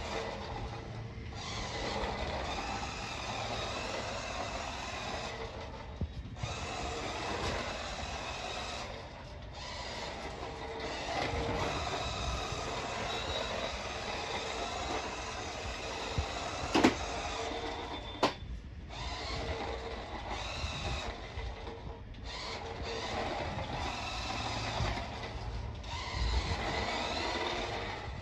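Battery-powered RC toy semi-truck's small electric drive motor and plastic gears whirring as it drives, cutting out and starting again several times as it stops and goes. There is a sharp knock about two-thirds of the way through.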